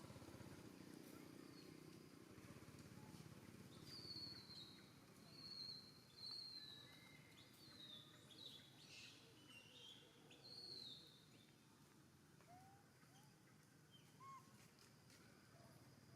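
Faint outdoor ambience with a series of short, high chirping bird calls, most of them between about four and eleven seconds in.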